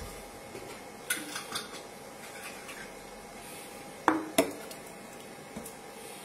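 A kitchen utensil clinking and tapping against the stainless steel jug of a Cecotec Mambo kitchen robot as seasoning is added: a few light clicks about a second in, then two sharper knocks in quick succession about four seconds in.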